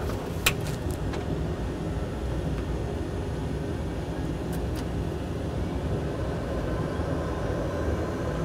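Simulated jet engine noise in a flight simulator cockpit: a steady rumble with a faint whine that grows slightly stronger in the last few seconds as power comes up for takeoff. A sharp click about half a second in.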